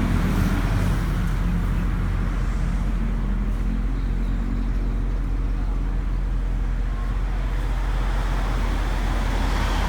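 A motor vehicle's engine running steadily, a low even hum.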